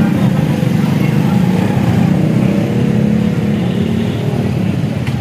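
A small engine running steadily with an even, low rumble.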